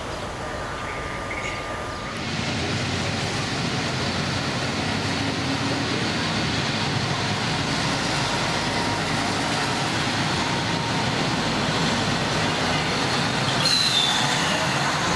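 Diesel regional passenger train running past along the platform: a steady rumble of engine and wheels that swells about two seconds in. Near the end there is a brief high wheel squeal.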